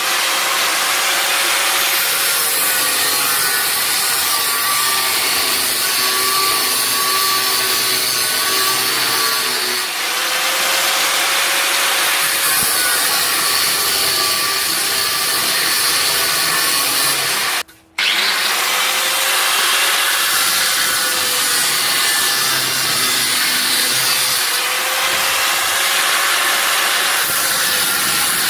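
Power tool cutting and shaping a steel blanking plug for a motorcycle frame tube. The motor runs continuously, its pitch dipping and recovering under load over repeated passes. About two-thirds of the way through the sound cuts out for a moment.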